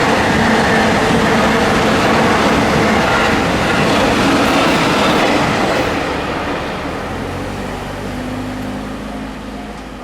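Electric train passing over a level crossing: loud wheel and rail noise that fades from about six seconds in as the train moves away. A faint repeating tone comes through near the end.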